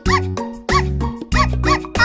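Bouncy background music with a steady bass beat and a short rising-then-falling squeaky call on each beat, three times.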